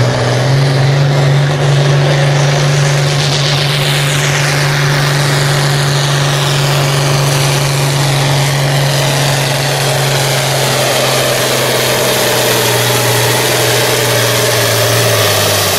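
International Harvester 986 tractor's diesel engine at full throttle, pulling a weight-transfer sled: a steady, heavy engine note under load. A high whine slides down in pitch a few seconds in, and the engine note cuts off near the end.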